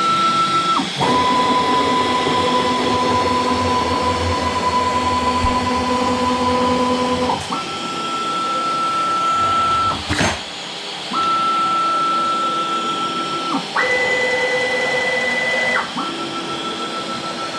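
Home-built CNC router running while milling aluminium: a steady whine that holds one pitch for a few seconds, breaks off, then starts again at a higher or lower pitch, several times over. A single sharp click about ten seconds in.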